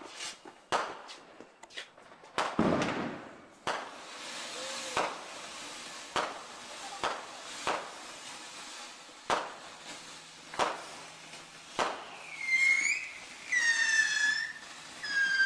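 TNT Starburst consumer firework fountain going off: a sharp crack every second or so over a steady spraying hiss, with several shrill whistles near the end.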